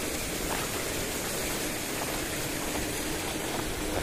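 Paddlewheel aerators churning shrimp-pond water, a steady rushing splash.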